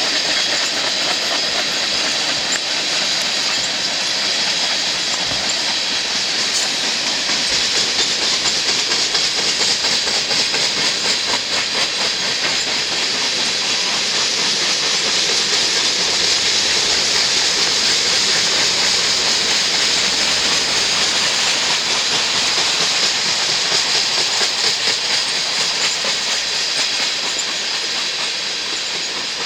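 Empty tank cars of a crude oil unit train rolling past at speed: a steady rush and rattle of steel wheels on rail with rapid clicking, under a loud high-pitched hiss from the wheels.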